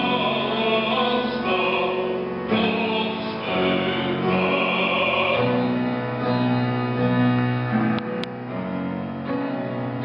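A song: a classically trained male voice sings long held notes over instrumental accompaniment. About halfway through, the voice gives way to the accompaniment alone.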